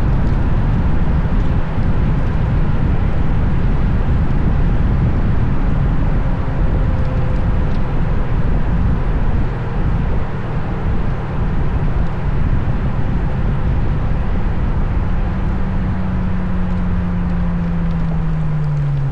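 Ferrari GTC4Lusso V12 with a Capristo exhaust cruising along the road, its engine drone mixed with heavy wind and tyre rush on the outside-mounted camera. Near the end the engine note falls steadily in pitch as the car slows.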